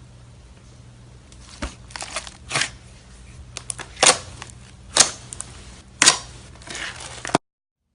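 Slime being squeezed and poked by hand, giving sharp wet pops and crackles about once a second. The sound cuts off abruptly near the end.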